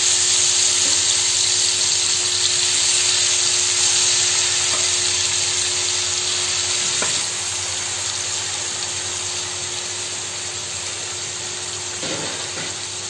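Small marinated chelwa fish frying in hot oil on a flat iron tawa, a steady loud sizzle that eases slowly over the seconds.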